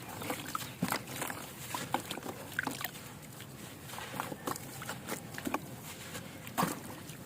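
Chunks of dry, dusty compressed sand crumbling into water: an irregular run of soft crackles and small taps, several a second, over a faint steady hiss.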